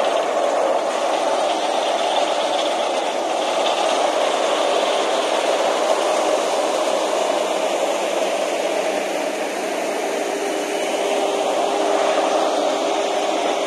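Vögele Super 1800-3 tracked asphalt paver running close by, a constant mechanical noise with a rattle. A faint steady tone comes in about ten seconds in.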